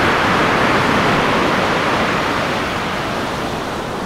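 Loud, even rushing noise of a logo-intro sound effect, like surf or a waterfall, easing off slowly.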